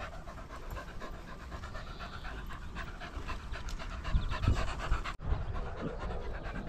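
Dogs panting close by, quick rhythmic breaths, with a few low thumps about four seconds in.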